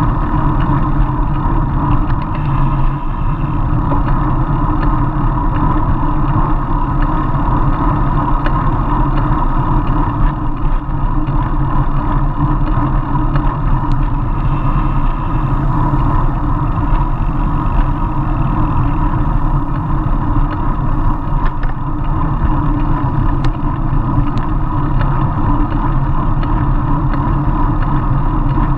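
Steady wind and road noise from a road bicycle riding at speed, with air rushing over the handlebar-mounted action camera's microphone.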